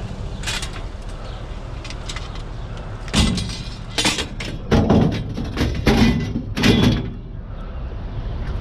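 Pieces of scrap metal landing with about six heavy clanks and thuds over some four seconds, over the low steady hum of an idling vehicle engine.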